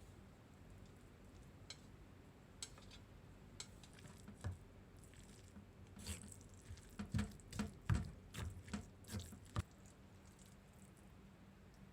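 Quiet room tone with a few isolated small clicks, then a cluster of short clicks and soft knocks over about three and a half seconds in the second half, the sound of things being handled.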